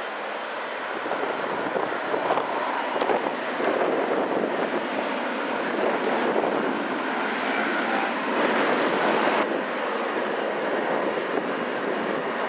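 Jet engines of a Boeing 777-300ER, its GE90s, running at low taxi thrust as the airliner rolls along the ground: a steady rushing hum. The level drops abruptly about nine and a half seconds in.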